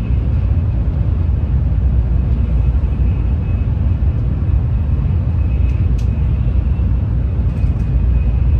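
Steady low rumble of an N700A Shinkansen at high speed, heard inside the passenger cabin, with a faint steady whine above it. A single sharp click sounds about six seconds in.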